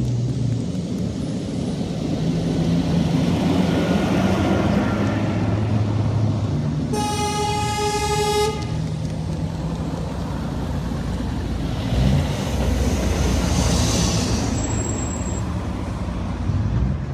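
Scania V8 truck engine running as the truck approaches and passes close by. A long, loud horn blast comes about seven seconds in and lasts about a second and a half.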